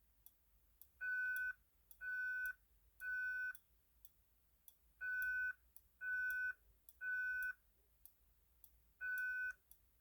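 Fire alarm speaker strobe, set to its loud volume tap, sounding the temporal-3 evacuation pattern: three steady beeping tones about half a second each, then a pause. Two full groups play and a third begins near the end, with faint ticks between the tones.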